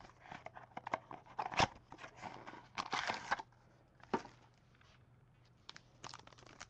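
Foil and plastic wrapping of a sealed trading-card pack crinkling and rustling in irregular bursts, with a few sharp clicks, as the pack is handled and opened. It pauses for about two seconds past the middle.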